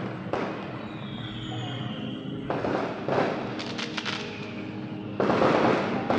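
Firework-like bursts and crackles in a music video's intro, over a sustained music drone: a burst near the start, another about two and a half seconds in, a run of sharp crackles just after, and the loudest burst near the end.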